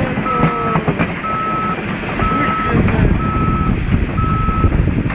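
Caterpillar crawler bulldozer's backup alarm beeping steadily, about one high beep a second, the sign that the machine is in reverse, over the loud low rumble of its diesel engine working as it tries to back out of the mud.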